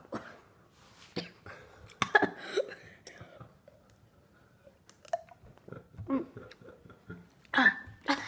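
A boy chewing a hot chili pepper: wet mouth noises and chewing, broken by short irregular gasps and throat sounds at the heat, with a couple of sharp clicks about five seconds in and louder vocal bursts near the end.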